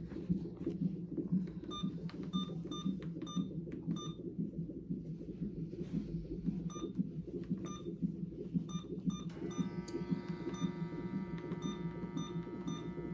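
Hospital fetal heart monitor playing the baby's heartbeat as a fast, steady pulsing, with small electronic beeps over it. About three-quarters of the way through, steady held tones like music come in over it.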